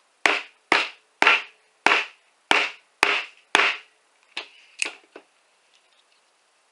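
Sharp blows struck on the back of a folding knife's blade, driving it through copper NM-B electrical cable: seven hard strikes about half a second apart, then three lighter ones.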